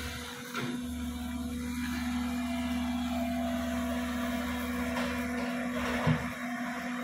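Tracked excavator's diesel engine running steadily, a constant low hum, with a brief thump about six seconds in.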